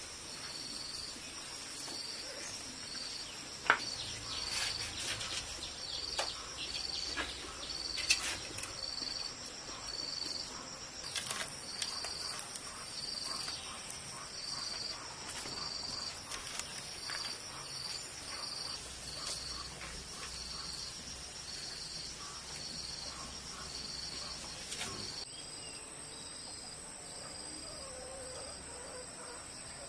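Insects chirping: a high chirp repeating about once a second over a steady high drone, with scattered clicks and two sharper knocks about four and eight seconds in.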